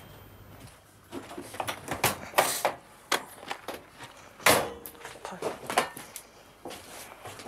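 Irregular knocks and clicks in a small room, the loudest about four and a half seconds in.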